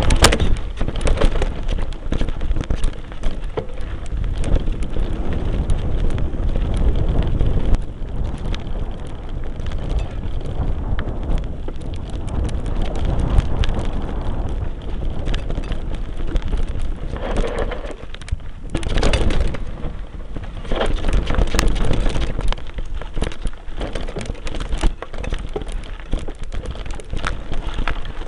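Mountain bike riding over a rough dirt and stone trail, heard from a camera mounted on the front of the bike. A constant rushing of wind and tyre noise is crowded with small knocks and rattles as the bike jolts over the ground.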